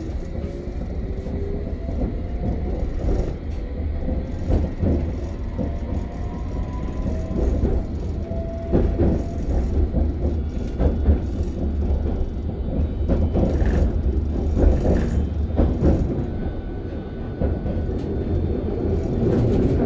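London Underground train heard from inside the carriage as it pulls out of a station: a steady low rumble of the running train, with irregular knocks from the wheels and bogies. Over the first several seconds the traction motors whine upward in pitch as the train gathers speed.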